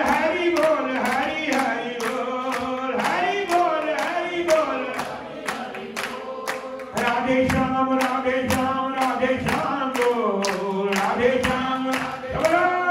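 A group singing a devotional kirtan chant, voices holding long notes that bend up and down, over a steady beat of sharp strikes at about four a second.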